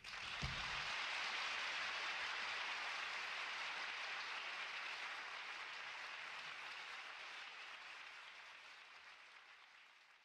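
Audience applause, a dense even clapping that starts suddenly, then slowly fades until it dies away near the end.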